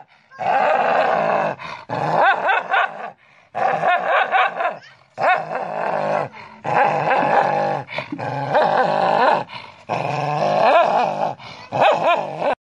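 Dogs snarling and growling with teeth bared, in about eight wavering bouts of a second or two each with short breaks between.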